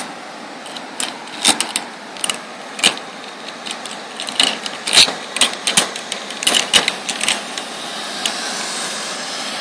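Zipline trolley running along a steel cable as a rider comes in, with irregular metallic clicking and rattling; a whirring hiss swells near the end as the rider draws close.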